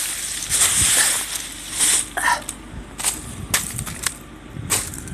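Ice and snow crunching and cracking on a floating ice floe: about eight sharp, irregularly spaced cracks and crunches.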